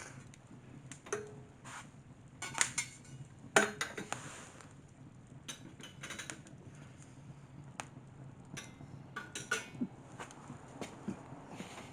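Wood fire burning, with irregular sharp crackles and pops scattered over a faint background.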